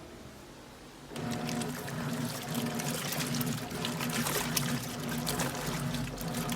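Electrolux LTC10 10 kg washing machine running a load of jeans at extra-low water level: water pouring and splashing over a low hum, starting about a second in.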